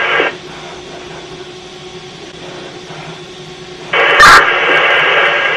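Fire department radio channel between transmissions: a faint hiss with a low steady hum, then about four seconds in a radio keys up and a loud, thin static hiss opens with a sharp click, with no voice on it yet.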